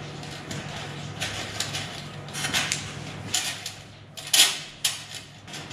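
Coiled electric-furnace element wire being fed by hand through the ceramic insulators of a metal heater rack: irregular light metallic clicks and scrapes of the wire against the rack, the loudest just after four seconds in.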